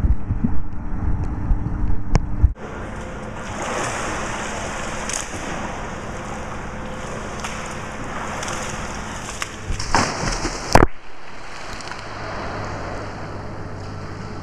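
Muffled underwater rumbling and knocking, cutting off sharply after about two and a half seconds to a steady wash of pool water. Two sharp knocks come about ten seconds in.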